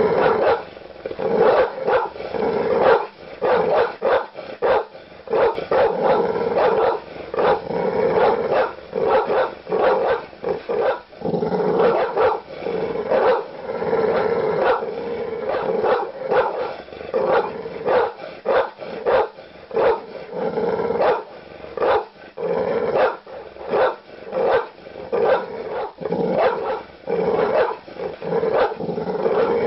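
Large dog barking aggressively and loudly in deep barks, one to two a second, with only short pauses between bursts.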